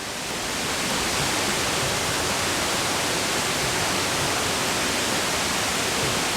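Rushing water, an even hiss with no pitch, swelling over about the first second and then holding steady.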